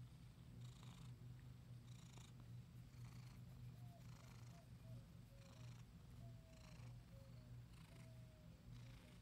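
Calico cat purring steadily close up while being petted, the purr rising and falling about once a second with her breathing.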